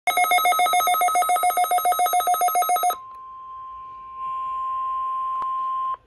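Midland WR-400 weather radio sounding its rapid electronic alert beep, about nine pulses a second for some three seconds. It then plays the steady single-pitch NOAA Weather Radio warning alarm tone through its speaker; the tone gets louder about four seconds in and cuts off just before the end. This is the weekly test of the warning alarm.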